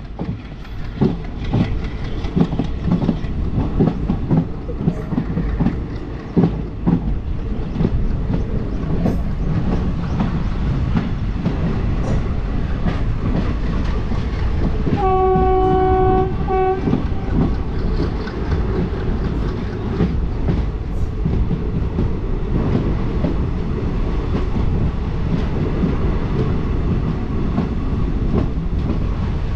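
Diesel-hauled passenger train running along the line, wheels clattering over the rail joints with a steady rumble. About fifteen seconds in, the train horn sounds one long blast of about two seconds with a brief break near its end.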